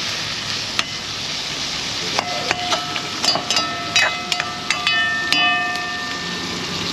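Food sizzling steadily as it fries in a hot pot. From about two seconds in, a metal utensil knocks against the pot a dozen or so times, and several strikes leave the metal ringing.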